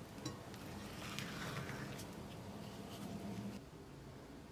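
Silicone spatula stirring thick brownie batter in a glass bowl: faint soft scraping with a few light clicks against the glass, over a low steady hum, dying away about three and a half seconds in.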